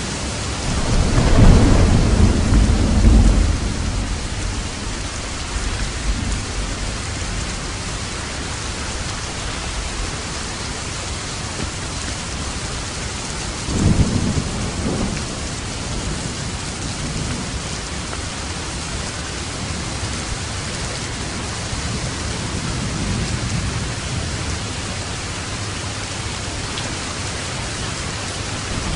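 Steady rain falling, with two rolls of thunder: a longer, louder rumble about a second in and a shorter one about halfway through.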